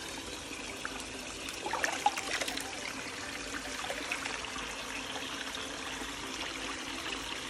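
Small shallow stream trickling over rocks, a steady rushing of water that grows briefly louder about two seconds in.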